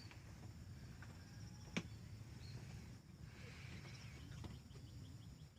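Faint rural outdoor ambience: a steady high insect drone over a low rumble, with a single sharp click about two seconds in and a brief higher sound a little past the middle.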